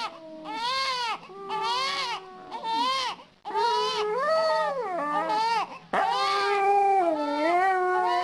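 A baby crying in a run of wailing cries, with a Siberian husky howling along in longer, lower held notes that overlap the cries.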